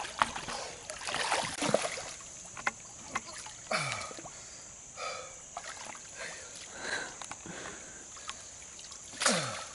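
Water splashing and sloshing in irregular strokes as a man swims and then wades through shallow water, dragging a dead deer.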